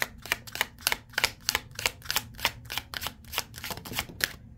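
A gilt-edged tarot deck being shuffled overhand: quick, even slaps of card packets, about five a second, stopping near the end.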